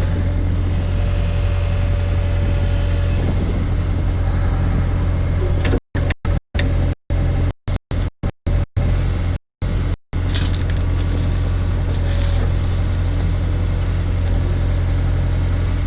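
Case/Davis D100 backhoe's engine running steadily under work, with a low drone and a faint steady whine above it. Between about six and ten seconds in, the sound cuts out to silence about eight times in short, abrupt gaps, which comes from the video file being corrupted.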